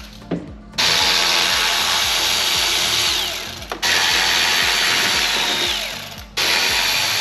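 Cordless electric screwdriver backing screws out of a motorcycle saddlebag lid's latch mechanism. It runs in three spells of two to three seconds each, the first starting nearly a second in. Each spell carries a high whine that fades and drops in pitch as it ends, and the next starts abruptly.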